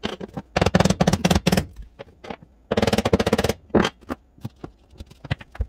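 Two quick runs of rapid hammer taps on a tapping block, knocking a laminate floor plank into place, followed by a few single knocks.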